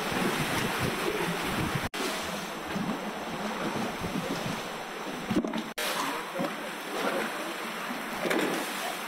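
Sea water surging into and sloshing through the hollows of a concrete jetty, a steady rushing racket of waves and water, broken by two split-second gaps.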